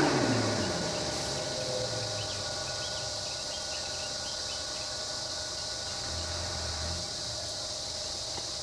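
Steady high-pitched drone of insects in the roadside jungle, over the low hum of a bus engine idling close by. A louder low engine sound fades away during the first second.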